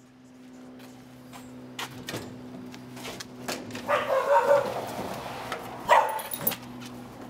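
Knocks and bumps of a struggle in a van's cargo area over a steady low hum, with two short, loud, muffled voice-like outbursts about four and six seconds in.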